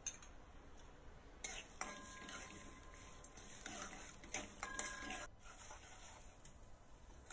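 A spatula stirring and scraping mustard seeds, lentils and dried red chillies frying in oil in a coated kadai, with clicks of the spatula against the pan. The stirring starts about a second and a half in and is busiest until about two seconds before the end.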